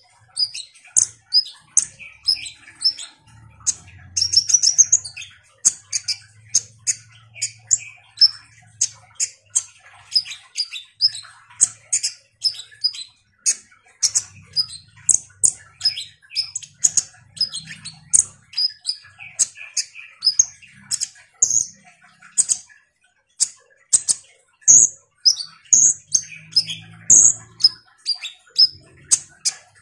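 A caged kolibri ninja sunbird singing at full pace ("gacor"), an unbroken stream of short, high, sharp chirps and quick twitters, several notes a second.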